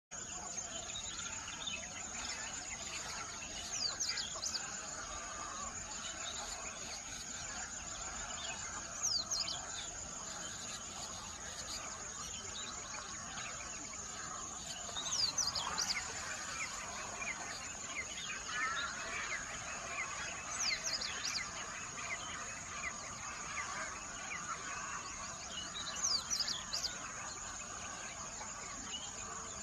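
Several songbirds chirping and singing. One bird repeats a short, high, falling phrase about every five or six seconds, the loudest sound here, over a steady high-pitched insect drone.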